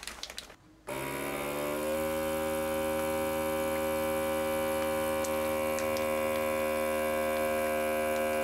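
SilverCrest vacuum sealer's pump running as it draws the air out of a bag: a steady motor hum that starts suddenly about a second in, rises a little in pitch as it gets going, then holds steady.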